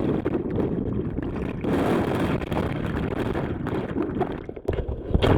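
Rushing whitewater of a river rapid churning close to the camera's microphone, a steady noisy rumble that briefly dips near the end.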